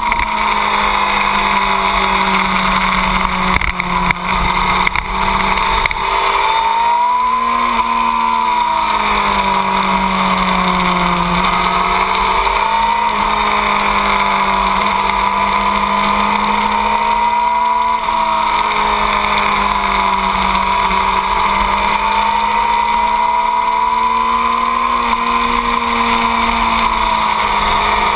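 2008 Yamaha R6's 600 cc inline-four engine running at high revs under hard riding, its pitch rising and falling slowly with the throttle, with a couple of brief dips about four to five seconds in. Wind rushes over the microphone throughout.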